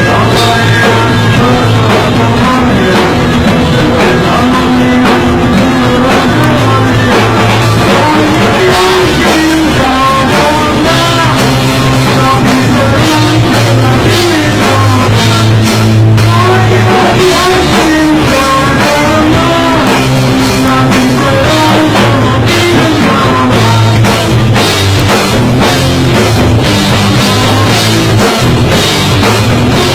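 A rock band playing loudly: drum kit, electric guitar and bass, with a singing voice over it.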